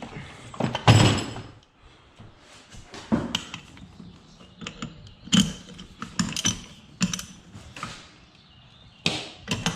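Irregular metallic clicks, clinks and knocks of a socket, adapter and wrench being picked up and fitted, the loudest knock about a second in.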